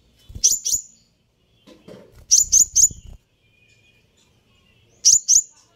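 Sunbird (kolibri ninja) giving sharp, very high chirps in three quick groups of two, three and two notes, each note a brief downward flick. A low rustle or flutter sounds under the middle group.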